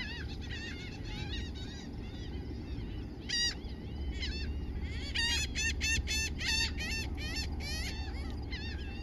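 Seabirds at a nesting colony calling: many short, harsh, overlapping calls, coming thick and fast from about five seconds in, over a steady low rumble.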